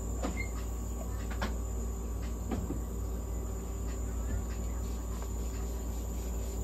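Nebulizer and oxygen equipment running steadily for a cat's inhalation therapy: a constant hum with a thin, high whine over it, and a few faint ticks.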